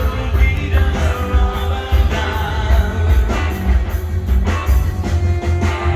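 Rock music with a heavy beat and singing.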